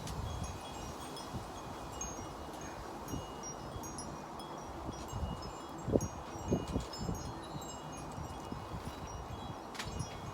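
Wind chimes ringing irregularly at several high pitches in gusty wind, over a low wind rumble on the microphone that swells in gusts a little past the middle.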